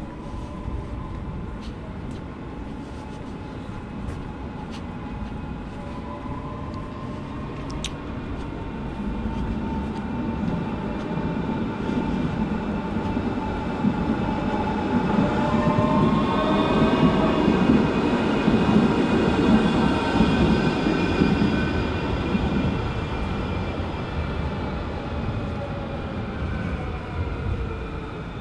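Electric tram passing along the street: a low rumble of wheels on rails under a whine of several steady tones from its electric drive, swelling to its loudest in the middle and then fading as it moves off.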